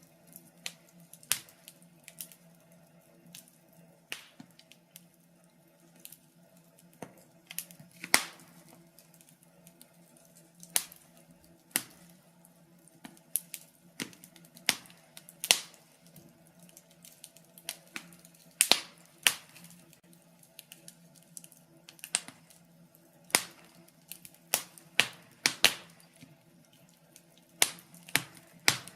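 Wood fire in a fireplace crackling, with irregular sharp pops and snaps of varying loudness over a faint steady hum.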